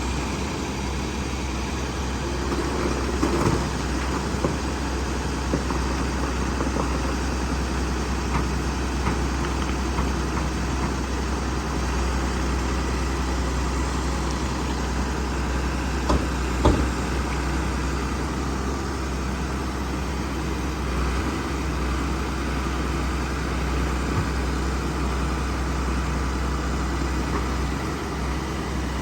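Heavy diesel engine running steadily at a low rumble, with a few short knocks, about three and a half and sixteen and a half seconds in.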